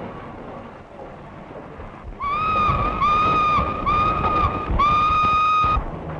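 Steam locomotive whistle sounding four blasts, three short and a longer final one, over the rumbling hiss of the running locomotive.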